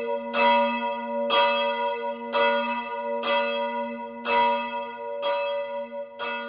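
A single church bell tolling, struck about once a second on the same note, each strike ringing on into the next, slowly getting quieter.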